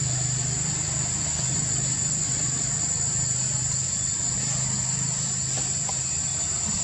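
A steady low mechanical hum, like an engine or motor running, under a constant high-pitched drone of insects.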